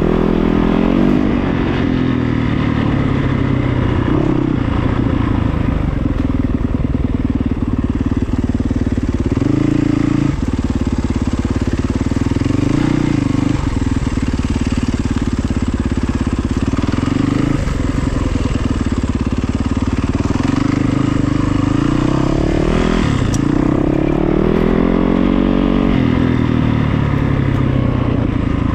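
A vehicle engine running continuously, its pitch rising and falling as it speeds up and eases off, with a longer climb in pitch near the end.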